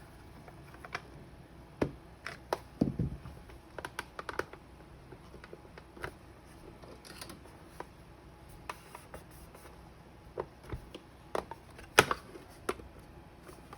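Irregular clicks and taps of hard plastic parts being handled as a vintage flip clock's knobs and case are worked apart, the sharpest click about twelve seconds in.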